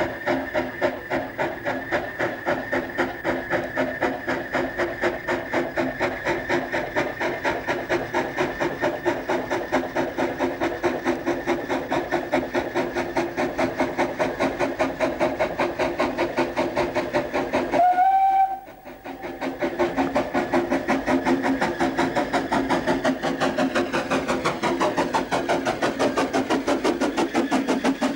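Steam locomotive working, its exhaust beating evenly about four times a second over a steady hiss. A short whistle note sounds about two-thirds of the way through, and the sound drops out for a moment just after it.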